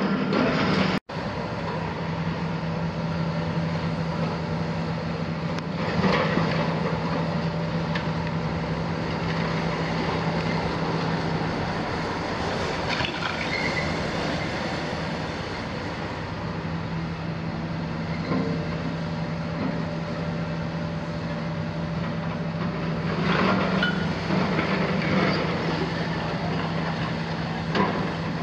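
Kiesel KMC 400 demolition excavator on a Hitachi base, its six-cylinder Isuzu diesel running steadily with a constant hum, while its grapple breaks and drags concrete rubble. Crashes and scraping of broken concrete come about six seconds in and again in a longer stretch near the end.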